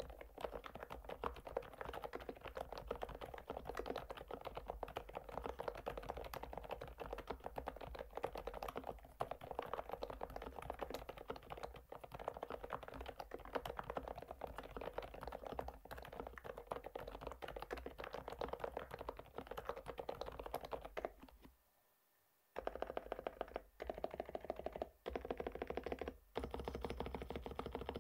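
Typing on an FL-ESPORTS OG-series retro mechanical keyboard with a plastic case: fast, continuous key clacking that stops about 21 seconds in, then comes back as a few short runs of typing that cut off suddenly.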